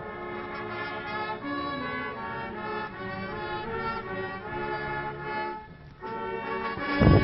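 Brass band playing long held notes, the tune moving in phrases, with a loud thump near the end.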